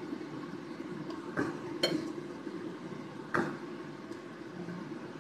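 Three light knocks of a ceramic plate being handled on a kitchen counter, about a second and a half, two, and three and a half seconds in, over a steady low kitchen hum.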